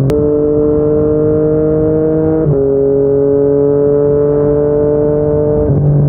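Yamaha MT-09's three-cylinder engine through a Yoshimura R55 slip-on exhaust, pulling steadily under gentle acceleration. Its pitch climbs slowly, then drops sharply at an upshift about two and a half seconds in and again near the end.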